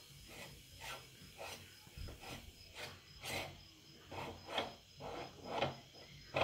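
Hand-cranked meat grinder turning, its auger forcing soft cake through the cutting plate: a rhythmic rasping scrape, two or three strokes a second, growing louder toward the end.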